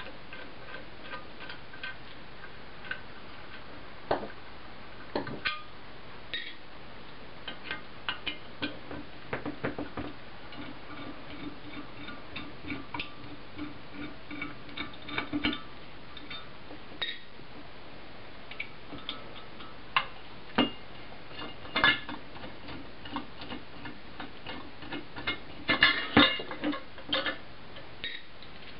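Small hand driver backing out the 3mm pan-head screws that hold the back cover of a BZM Micro engine, making light scattered ticks and clicks of tool and metal. A cluster of louder metal clinks comes near the end as the fan housing is lifted off.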